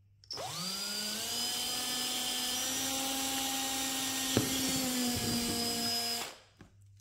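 Cordless drill with a 1/4-inch twist bit drilling through the plastic wall of a storage bin. The motor spins up quickly and runs at a steady pitch for about six seconds, with a single click about four seconds in, then stops.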